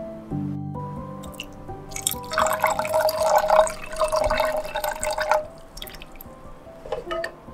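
Water poured in a thin steady stream into a pan of thick, syrupy condensed milk and ube flavouring, lasting about three seconds, over background music.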